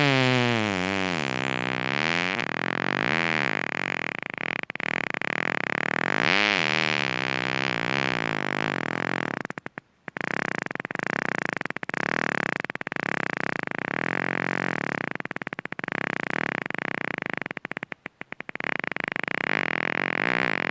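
A long, electronic-sounding fart noise whose pitch wobbles and glides up and down over a steady hiss. It starts suddenly and cuts out briefly twice, about halfway through and again near the end.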